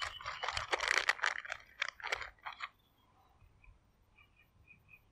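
Plastic lure packets crinkling and rustling as hands sort through them and pull one open, for about the first two and a half seconds. Then it falls quiet, with a few faint bird chirps.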